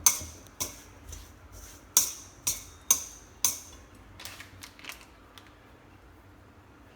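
Kitchen utensils clinking against a bowl or dish while food is being tossed: about a dozen sharp clinks, the loudest in the first half, then lighter ones that stop after about five seconds.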